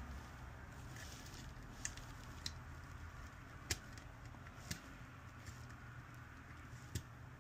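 Faint, irregular light clicks of a test probe's metal tip touching components on a circuit board, five in all, over a steady low hum.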